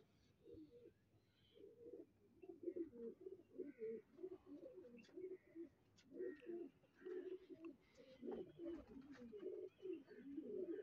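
Domestic pigeons cooing, faint, with soft low calls repeating one after another.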